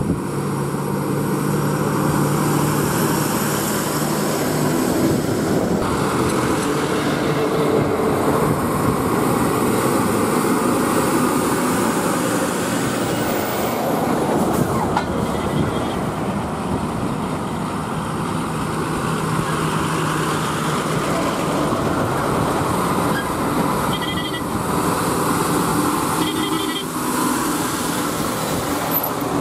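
Heavily loaded diesel goods lorries passing close by one after another, with the engine note and tyre noise rising and falling as each goes past. Short horn toots sound twice near the end.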